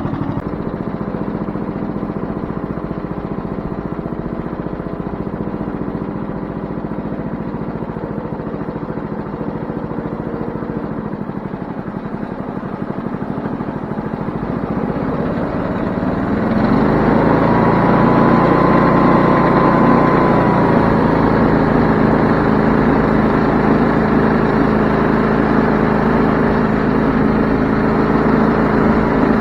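Wood-Mizer LT20 band sawmill's engine running steadily, then about two-thirds of the way through it throttles up and gets louder, with a brief whine, as the mill is brought up to speed to start sawing.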